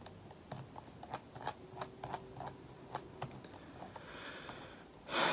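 Faint, irregular light clicks, like keys tapped on a computer keyboard, about a dozen over the first three seconds, followed by a short louder hiss near the end.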